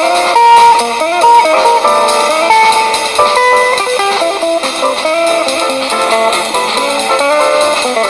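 Background music led by guitar, a melody of quick, stepping notes over strummed chords.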